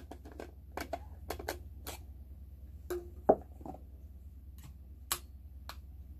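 Scattered light clicks and taps from handling a metal insulated bottle as its plastic cap is unscrewed and set down on the table, with one sharper knock a little past halfway.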